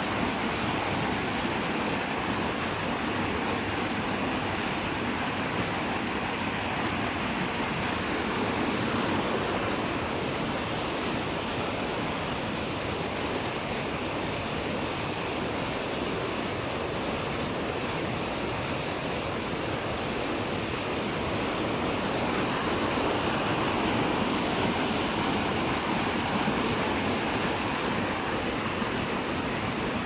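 Steady rushing of flowing water, an even, continuous noise with no breaks.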